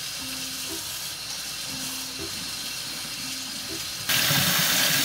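Tap water running into a stainless steel pot of cooked instant noodles as they are rinsed and stirred with chopsticks. It is a steady rushing of water that gets suddenly louder about four seconds in.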